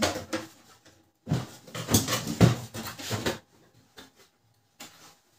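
Plastic clicks, knocks and rattles as the side and front cover panels of a Canon LBP 2900 laser printer are pried and pulled open by hand. The sounds come in a dense cluster of sharp snaps about a second in, followed by a few small clicks near the end.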